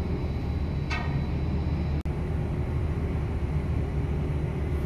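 Steady low rumble of a ship's machinery heard on the open deck at anchor, with a short high chirp about a second in and a momentary cut-out of the sound just after two seconds.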